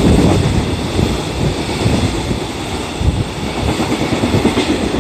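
JR Freight container wagons of a freight train rolling through on the adjacent track, their wheels running on the rails in a steady noise, with the last wagons going by near the end.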